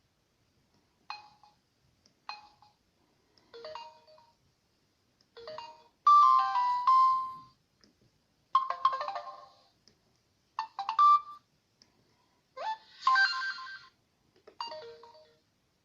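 Samsung GT-C3010 mobile phone playing a string of short electronic ringtone jingles, one after another about every one to two seconds. Several are falling three-note figures, and a few longer chiming phrases come in the middle.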